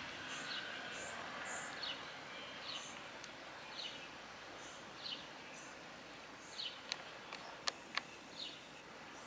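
Faint chirps from a small bird or insect, repeating about once a second over a steady background hiss, with a few sharp clicks near the end.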